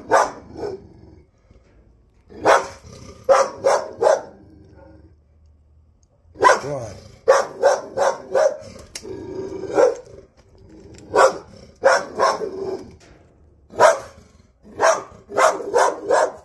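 A dog barking aggressively in repeated volleys of several quick barks, with short pauses between them.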